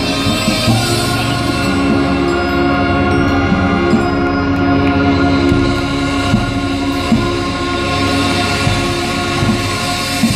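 Marching band playing, with the brass holding long sustained chords over the percussion and a few sharp drum hits.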